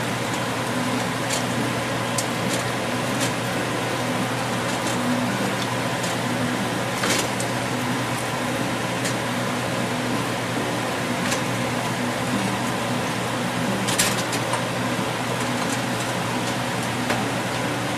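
A utensil stirring a thick tomato and seafood sauce in a metal wok, giving a few sharp clicks against the pan, the loudest about 7 and 14 seconds in. Under it runs a steady whirring hiss, like a kitchen fan or the simmering pan.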